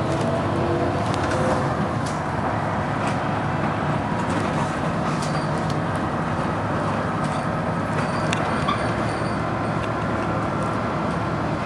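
Interior of a Dennis Arrow double-decker bus on the move: the engine running steadily under load, with occasional sharp clicks and rattles from the body.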